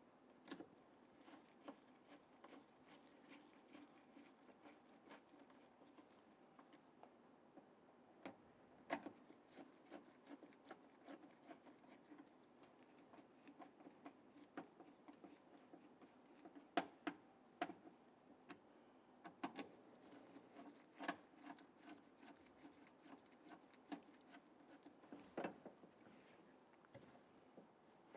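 Faint, scattered clicks and light scratching of small hardware being handled, with a few sharper clicks: screws being started by hand to hold a door lock actuator against the door shell.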